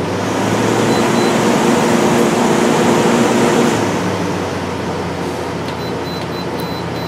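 8000 BTU LG window air conditioner with an LG rotary compressor running just after start-up: a steady hum with air rushing, louder for the first four seconds or so, then settling a little lower. Near the end comes a run of short high beeps, a few a second.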